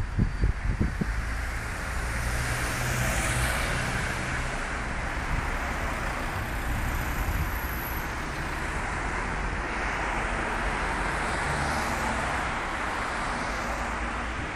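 Street traffic noise: a steady wash of passing cars, swelling as vehicles go by about three seconds in and again near the end.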